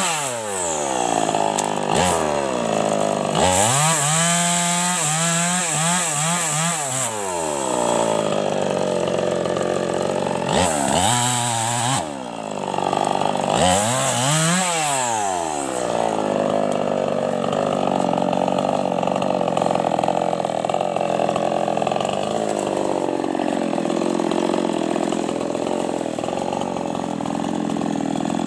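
Small two-stroke chainsaw cutting a fallen tree trunk, its engine revving up to full throttle and dropping back several times. From about sixteen seconds in it settles to a steadier, lower running speed.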